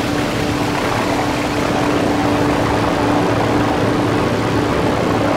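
Improvised electronic noise drone from modular synthesizers and a sampler run through effects: a dense, rough wash of noise over a steady low hum and a held mid-low tone, sounding much like a running engine.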